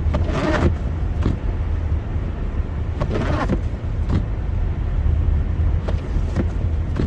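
Steady low rumble of a car driving on a snowy highway ramp, heard from inside the cabin. A short swishing sweep comes near the start and again about three seconds in, with a few faint clicks.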